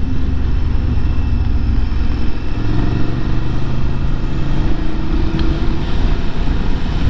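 BMW F750GS parallel-twin engine running as the motorcycle rides at around 50–60 km/h, mixed with steady wind rumble on the rider's microphone. The engine note rises slightly in the middle as the bike picks up speed.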